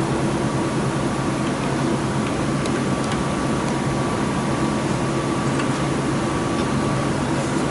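Steady mechanical hum of workshop machinery, even and unchanging, with a few faint clicks of hand work on screws about three seconds in.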